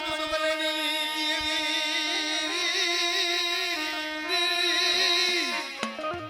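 Gujarati devotional folk singing: one voice holds a long wavering note over a steady instrumental drone, sliding down and stopping near the end, where sharp drum strokes start.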